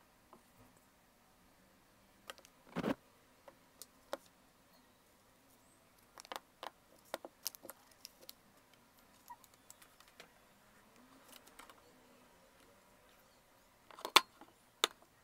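Scattered light taps and clicks of a ceramic bowl, a glass muller and other tools being picked up and set down on a tabletop, with the handling of a plastic bag of pigment. The loudest knocks come about three seconds in and again near the end.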